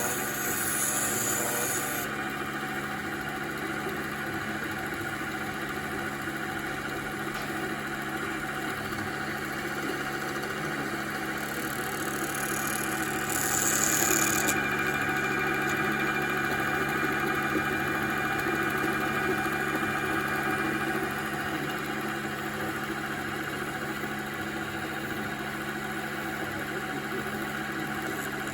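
Emco Unimat PC CNC lathe running steadily, its motors giving a constant hum and whine, with short bursts of high hissing as the tool cuts into the pencil, once at the start and twice a little before the middle.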